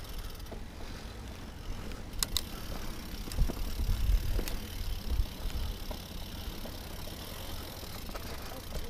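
Mountain bike rolling over a rocky dirt singletrack: a steady low rumble of tyres on dirt, with sharp clicks and rattles from the bike over rocks, busiest between about two and five and a half seconds in.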